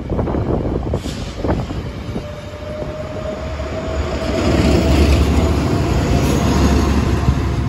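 Metrolink commuter train's bilevel coaches rolling past, with sharp wheel clacks over rail joints in the first second and a half and a faint steady whine from about two seconds on. The diesel locomotive at the end of the train then passes with a louder, low engine rumble.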